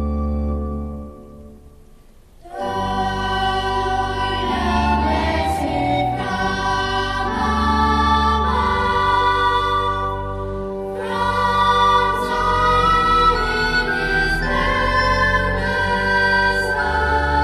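Choir singing a metrical psalm with organ accompaniment. An organ chord dies away, and the singing starts about two and a half seconds in, pausing briefly between phrases near the middle.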